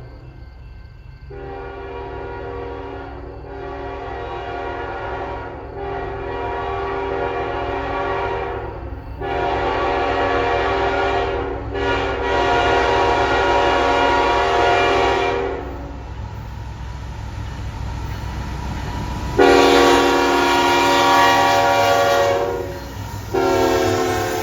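Diesel locomotive's multi-note air horn sounding a series of long blasts separated by brief breaks, over the steady low rumble of the locomotives. The horn stops for a few seconds, then comes back louder for the last two blasts near the end.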